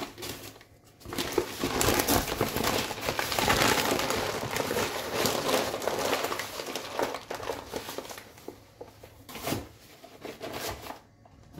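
Plastic sugar bag being crinkled and folded up, a dense crackling that lasts several seconds, followed by a few separate rustles and knocks near the end.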